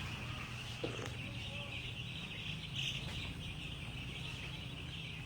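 A broiler chicken flock giving a dense, steady chorus of chirping and peeping, with a low steady hum underneath.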